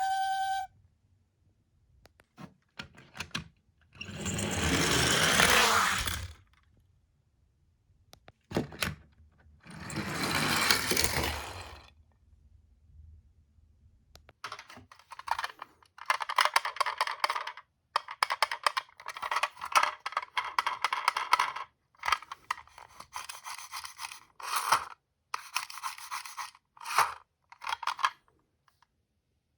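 Die-cast toy minicars rolling down a slope and clattering together: two longer rolling rushes in the first dozen seconds, then a quick succession of short rattling bursts through the second half.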